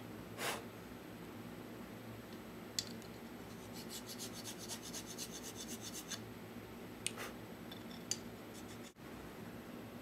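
A small file scraping the worn contacts of an antique Cutler-Hammer lantern switch to smooth them: a quick run of short strokes about four to six seconds in, with a few single scrapes and clicks around it.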